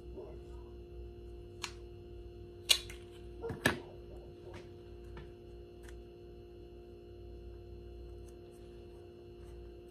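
Medical tape pulled and torn from a plastic tape dispenser and handled: a few short, sharp clicks and snaps, the two loudest close together around three seconds in, over a steady background hum.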